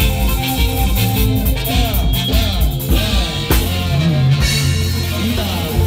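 Live band playing upbeat dance music: electric bass, keyboards and drum kit, with a lead line of sliding, bending notes over a steady bass and beat.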